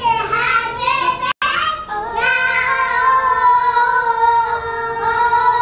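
Young children singing an action song together; the sound cuts out for a moment about a second and a half in, then the voices hold one long note.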